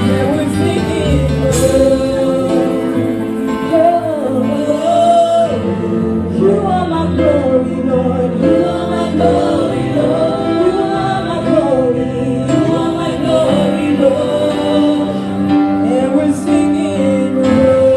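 Live gospel worship song: several women singers on microphones sing a slow, sustained melody together over instrumental backing.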